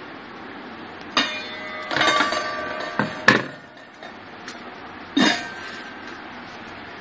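Stainless steel lid clanking against the rim of a round stainless steel vessel as it is lifted off and set back, several metallic knocks that ring briefly, the loudest about three seconds in.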